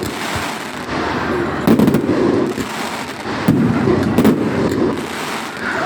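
Fireworks display: aerial shells bursting in a string of booms about a second or two apart, with crackling between them.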